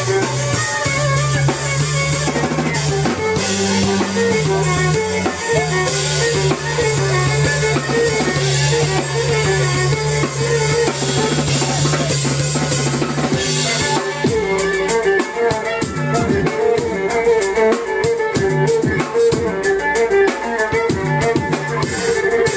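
Live music from a violin, drum kit and keyboard trio: held keyboard bass notes and a melody line over a drum beat. About two-thirds of the way through, the bass drops out and the drums switch to fast, dense hits.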